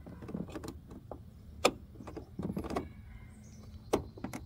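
Plastic wiring connector and wires being handled and pushed together by hand, giving a few sharp plastic clicks over a light rustle. The loudest clicks come about a second and a half in and near the end. The plug is not staying seated.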